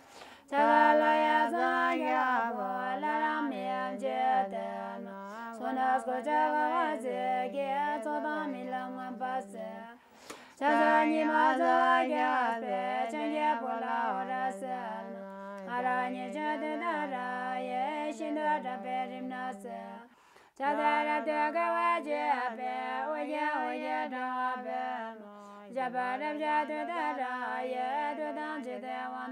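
A Buddhist nun singing a chant unaccompanied, a woman's voice in long melodic phrases with short pauses for breath every five to ten seconds.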